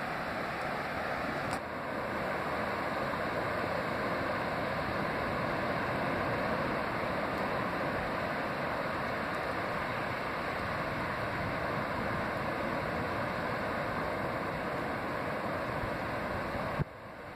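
Ocean surf breaking on an offshore reef, a steady rushing wash of waves. It briefly drops away near the end.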